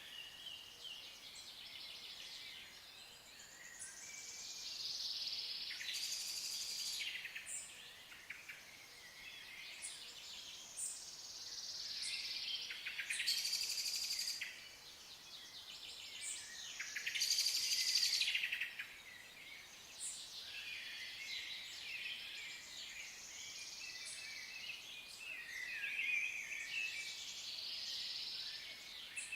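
Songbirds singing in the open, with a louder trilling song phrase every few seconds and other chirps between.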